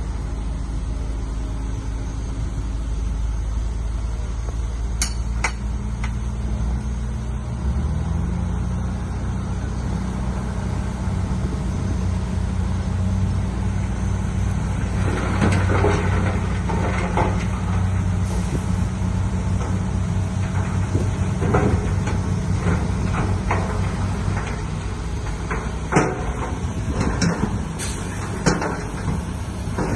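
Heavy diesel earthmoving machinery running steadily, its engine pitch shifting about a quarter of the way in. From about halfway, repeated metallic clanks and knocks sound over the engine.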